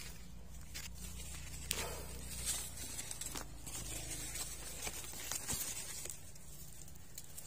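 Scattered rustles, crackles and light clicks of feet and hands moving over gravel, rubble and dry vines, over a low steady background hum.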